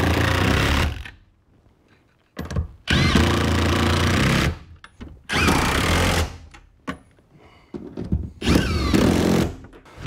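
Cordless impact tool driving the rear-seat floor bolts down on a pickup truck, in four short runs of about a second each with pauses between them.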